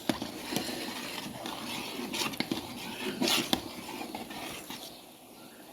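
Pot of thick cooking canjica (sweet corn pudding): soft pattering and scraping from the pot, with a few sharp clicks and two louder scrapes.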